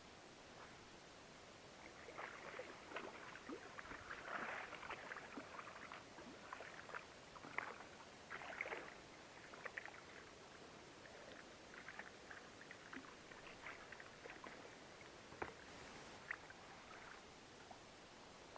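Faint, irregular splashing and dripping of water as a wels catfish is handled at the side of an inflatable boat. The splashes are thickest about four to five seconds in and again around eight seconds in, then thin out.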